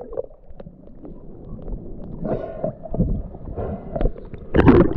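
Muffled, wordless voices: a few short vocal sounds over a low rumble, the loudest just before the end.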